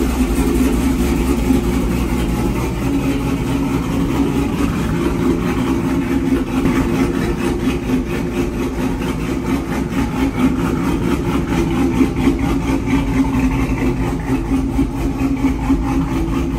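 Cammed LS V8 of a single-cab GMC Sierra idling steadily.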